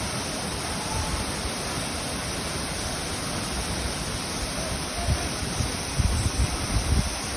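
Steady rushing of a waterfall, with a few low rumbling gusts in the last two or three seconds.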